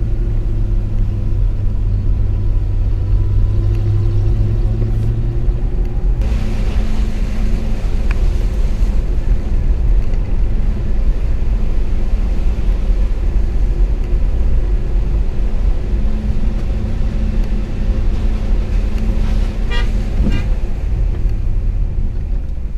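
Dodge Power Wagon pickup truck driving slowly down a snowy, rocky trail: a steady low engine rumble with tyre and road noise, picked up outside the cab at the side mirror. The hiss grows louder about six seconds in, with a few light clicks near the end.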